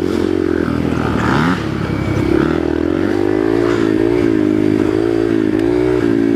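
Yamaha TTR 125 dirt bike's single-cylinder four-stroke engine running under way. Over the second half its revs rise and fall in quick swells about once a second as the throttle is worked.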